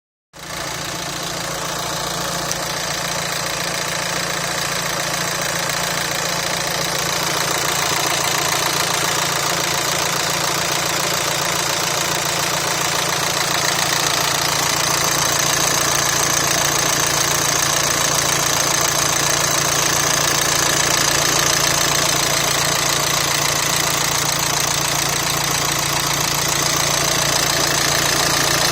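Volkswagen Amarok engine idling steadily, with a fast, continuous knocking from the engine bay that points to a fault under the bonnet.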